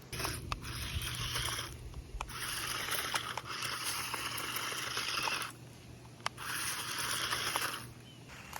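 Small electric drive motors of a toy remote-control stunt car whirring in three spurts of a few seconds each, a rough buzzing noise with a few sharp ticks and a faint steady hum underneath.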